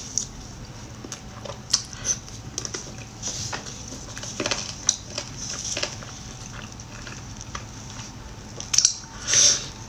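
Close-miked chewing of sticky glazed deboned chicken wings: soft wet smacks and mouth clicks come at irregular moments. A louder cluster of smacks and a burst come near the end.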